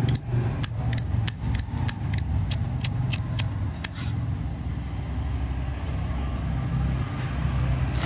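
A quick run of about a dozen sharp metal clicks, roughly three a second, that stops halfway through, from a Zippo lighter being handled, over a steady low hum.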